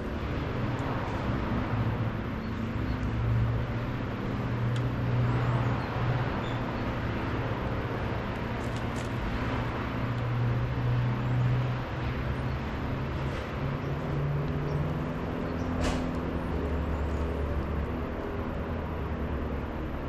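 A motor or engine running with a steady low hum whose pitch shifts a little now and then, with a sharp click about sixteen seconds in.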